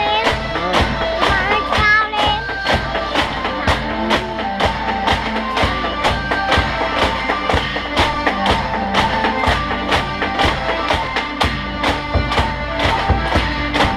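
Background music with a steady beat, with a singing voice briefly near the start.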